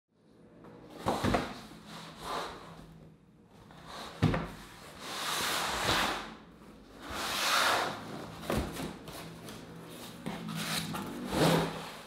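Long cardboard shipping box handled on a table: several knocks and thumps against the box, with scraping and rustling as its flaps are opened and a skateboard deck slides against the cardboard.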